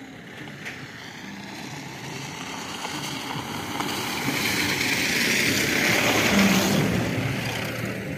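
A motor vehicle passing close by, growing steadily louder to a peak about six seconds in, then fading.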